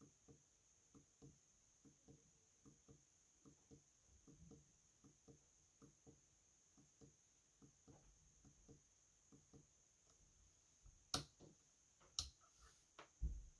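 Faint, quick clicks of a small pushbutton on a Digilent myDigital Protoboard, pressed about three times a second; each press clocks the asynchronous counter's two-digit display up by one. Two sharper, louder clicks come near the end.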